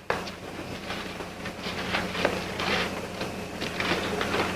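Paper rustling with many crackly page-turns, as Bibles are leafed through to find a passage.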